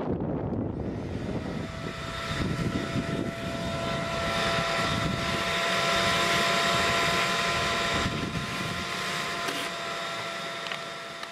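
Ridgid wet/dry shop vacuum switching on and running with a steady motor whine, powered from the van's newly installed shore-power outlet.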